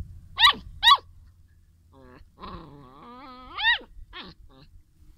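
Young animals crying out in a puppy–kitten squabble: two sharp, high yelps that fall in pitch, then a drawn-out lower whining growl about two seconds in, ending in another loud falling yelp and a few fainter short cries.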